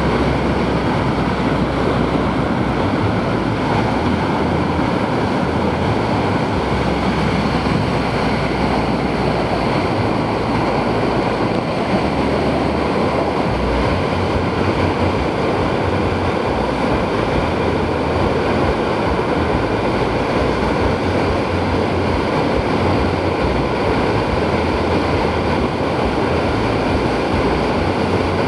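Steady rush of water from a FlowRider Flow Barrel surf machine: a pumped sheet of water racing up the curved ramp and curling over into a standing barrel wave.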